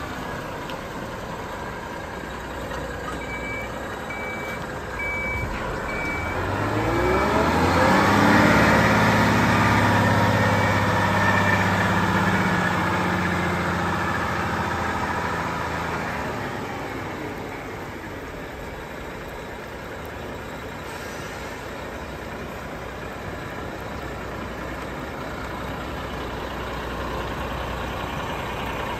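Renault T430 tractor unit's 11-litre six-cylinder diesel pulling away: its note rises a few seconds in and is loudest while the truck drives across the yard. It then eases back to a steady low rumble as the truck slows and turns. A short run of high beeps sounds just before it pulls away.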